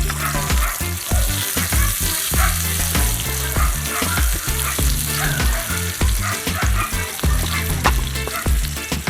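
Onion and garlic sizzling in hot cooking oil in a pan, with the frequent clicks and scrapes of being stirred.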